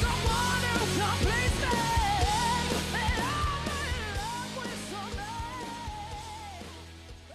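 Rock song with a sung vocal line over bass, drums and guitar, fading out over the last few seconds.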